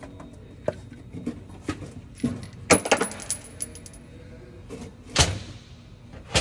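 Loose steel engine parts clinking and clanking while timing gears are being removed: scattered light clicks, a cluster of ringing metallic strikes near the middle, and one louder single knock about five seconds in.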